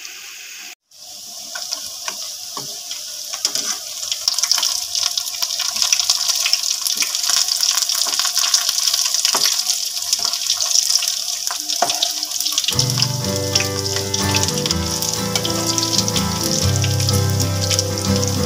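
Potato pakoras deep-frying in hot oil in a kadai: a steady sizzle with scattered crackles that grows louder over the first few seconds. Background music comes in about two-thirds of the way through.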